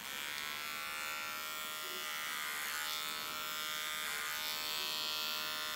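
Electric hair clippers, fitted with a number 3 guard, switch on and buzz steadily while trimming the hair at the base of the neckline.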